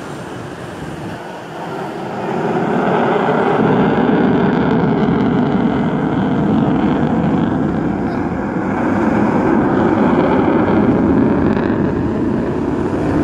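Jet aircraft flying past overhead: a loud, steady jet engine noise that swells about two seconds in and holds.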